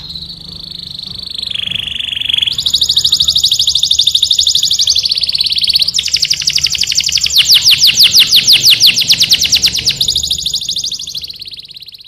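Canary singing a long song of rapid trills, each held for a second or two before switching to another. A slower rolling run comes about seven seconds in, and the song fades near the end.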